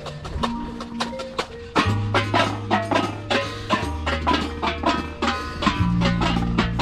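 Marching band playing: rapid, steady percussion strikes throughout, with low brass coming in about two seconds in on held chords that change twice.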